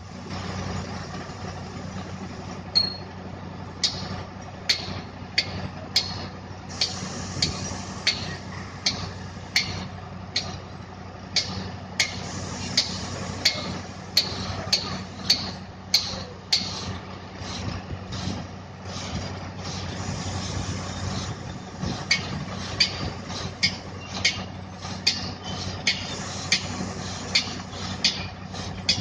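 Truck crane's diesel engine running steadily at low revs, with a long series of sharp knocks, about one or two a second, that pause briefly past the middle.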